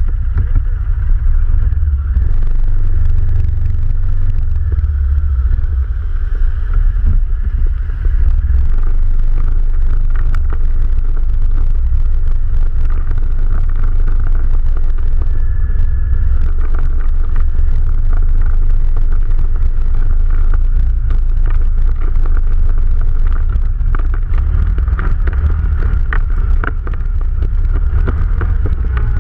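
ATV engine running while the quad is ridden, a steady loud low rumble with scattered clicks and knocks.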